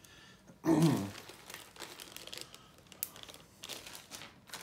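Small plastic zip bags of game pieces crinkling and rustling as they are handled. The loudest rustle comes about a second in, followed by lighter crinkles and small clicks.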